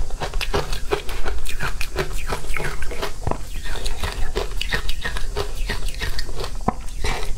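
Close-miked chewing of matcha-powdered shaved ice: a rapid, irregular run of crisp crunches as the ice is bitten and ground between the teeth.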